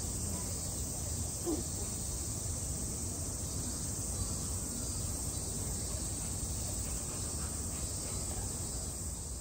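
Steady, high-pitched drone of insects over a low outdoor rumble, with one brief sound about a second and a half in.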